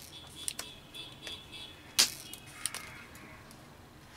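Spring-loaded desoldering pump (solder sucker) firing with one sharp snap about halfway through, as solder is sucked from a TV tuner box's pins. Lighter clicks and a faint high tone come before and after it.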